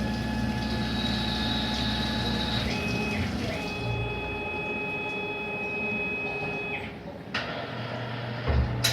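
CNC lathe running through a machining cycle on a stainless steel part: a low motor hum under steady whines that shift in pitch a couple of times, then stop, followed by a sharp clunk about seven seconds in.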